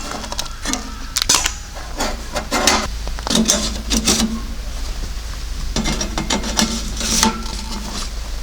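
Irregular clinking and scraping of cookware and utensils, in short strokes with small pauses between them.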